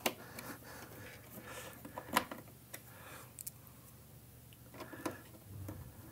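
Small screwdriver driving screws into a plastic housing: a few scattered light clicks, the sharpest about two seconds in.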